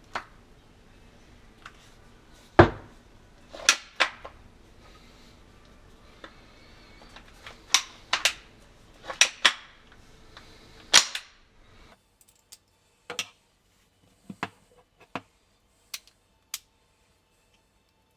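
Sharp metallic clicks and knocks at uneven intervals, about a dozen, from a PPSh-41 submachine gun being handled and taken apart. The loudest comes about two and a half seconds in.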